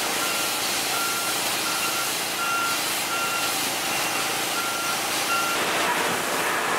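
A vehicle's backup alarm beeps steadily, a little over once a second, and stops about five and a half seconds in, over a steady rushing hiss of wind or water spray.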